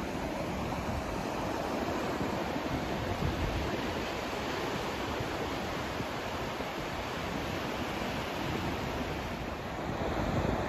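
Steady rushing noise with no tone or rhythm, heaviest in the low end and gently fluctuating, like a white-noise sleep track. It swells slightly near the end.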